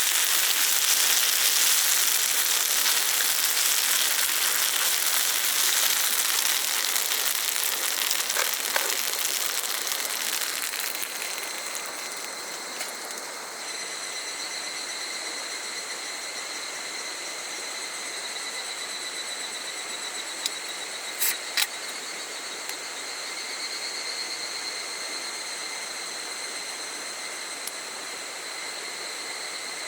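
Insects calling: a dense high-pitched hiss for roughly the first ten seconds, then steady high trilling tones, with a few short clicks about two-thirds of the way through.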